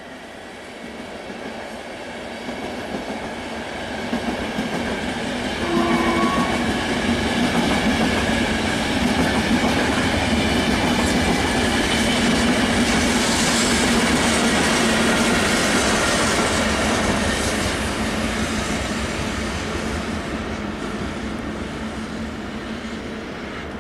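A train passing by: the rumble of its wheels on the rails grows steadily louder, peaks over several seconds and then fades away. A brief tone sounds about six seconds in.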